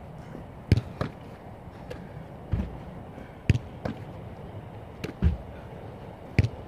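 A series of separate thuds and slaps from goalkeepers jumping onto and off a low plyometric box on artificial turf and handling a football, about nine impacts in all, a few of them loud and deep.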